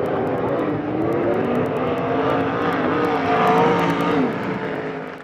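Sprint car engines running hard on a dirt oval, several at once, their pitch rising and falling as they go through the turns. The sound swells to its loudest about three and a half seconds in, then fades near the end.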